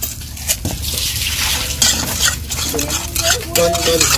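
A spoon stirring and scraping around a bowl of basting sauce, with many quick clinks and scrapes as the oil and MSG just added are mixed in.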